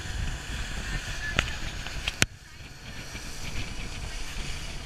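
Motorboat running at speed: a steady engine drone under the rush of wind and churned water. Two sharp clicks about one and a half and two seconds in, the second the loudest, after which the sound briefly dips.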